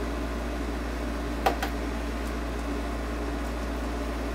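Steady low machine hum with two light clicks about a second and a half in, as the soldering pencil's tip and barrel are fitted back together.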